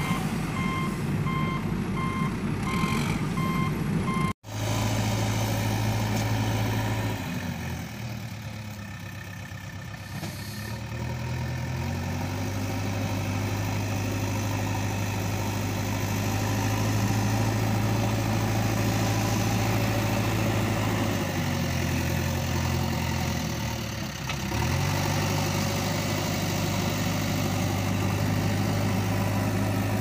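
Reversing alarm beeping steadily for about four seconds, then after a sudden break a heavy vehicle engine running with a steady low drone, its note dropping away and rising back twice.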